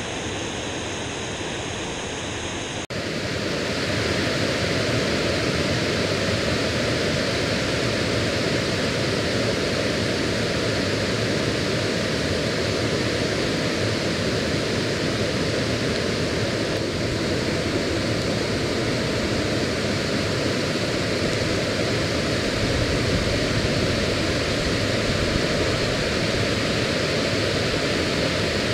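Steady, even rush of water pouring over a dam into a spring-fed stream. An abrupt cut about three seconds in makes it louder.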